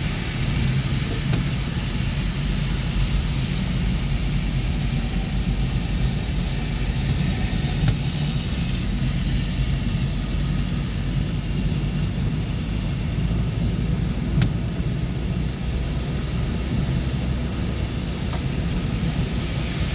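Steady driving noise heard inside a car cabin on a rain-soaked highway: low engine rumble with the even rush of tyres on the wet road and heavy rain on the car.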